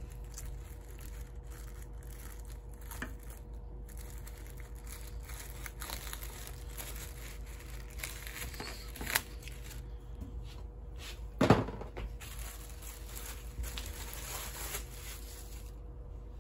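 Clear plastic poly bag crinkling and rustling as it is handled and opened and a folded T-shirt is pulled out of it. There is a brief louder rustle about eleven and a half seconds in.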